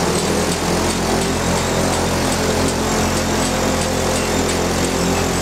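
An engine running steadily, a low even hum that does not change.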